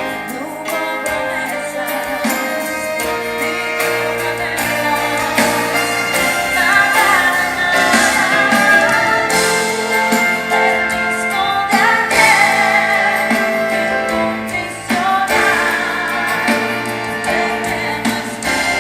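Live band playing a song through the theatre's PA during a soundcheck run-through, with a voice singing over the instruments from about six seconds in.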